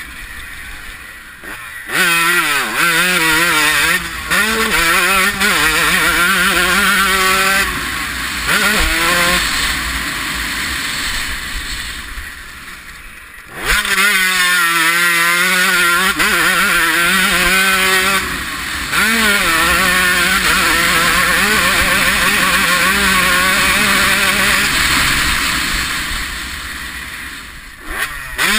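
1993 Honda CR125 two-stroke single-cylinder engine on a motocross track, revving hard and climbing in pitch through the gears, its pitch dropping at each shift. The throttle is chopped twice, briefly near the start and again about halfway, before it goes wide open again, with a steady rush of wind over the microphone.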